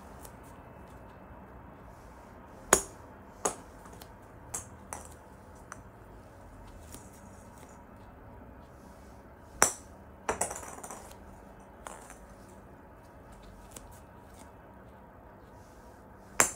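Sharp clicks of an iron striking a hollow plastic practice ball off an artificial-turf hitting mat. Three loud strikes about seven seconds apart, with lighter taps and a short rattle in between.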